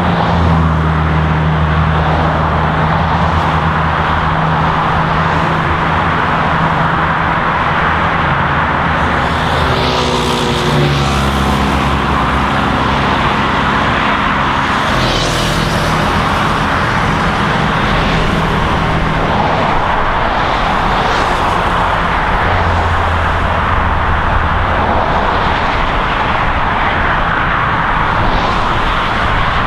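Steady highway traffic: a continuous rush of car tyres with the low hum of engines, and several vehicles passing close by, one of them sweeping down in pitch as it goes past about ten seconds in.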